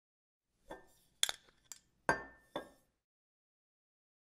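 A quick run of about five glass clinks over roughly two seconds, some with a short ringing tone, the sharpest one just past a second in.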